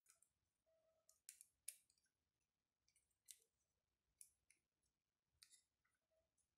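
Faint, scattered clicks of hard plastic toy parts as a Bandai Wild Egg transforming dinosaur toy is folded and unfolded by hand.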